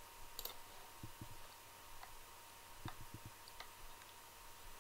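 Faint computer mouse clicks: a quick double click about half a second in, then several single clicks and soft knocks spread through the rest, over a faint steady hum.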